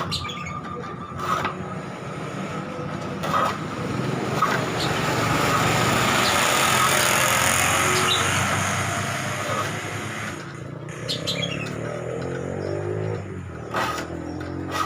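A motor vehicle passing by, its engine and noise rising for a few seconds and then fading, with a few sharp clicks before and after.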